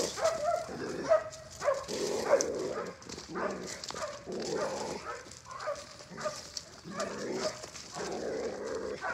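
Rottweiler barking and whimpering in quick repeated bursts as it lunges on the leash at another dog: a dog-reactive outburst.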